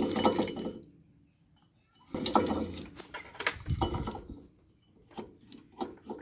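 Metal parts and hand tools clinking and clattering in irregular bursts, as in rotavator repair work. A quiet gap of about a second comes about a second in, and scattered single clinks follow near the end.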